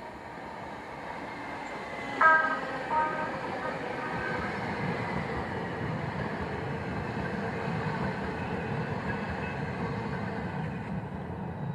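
San Diego Trolley light-rail train sounding two short warning signals about two seconds in, the first louder, then running with a steady rumble that grows louder and a faint high whine.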